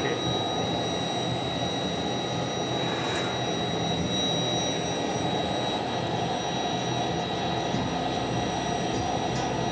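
Glassblowing furnace burners and blowers running with a steady rushing roar and a faint steady high whine.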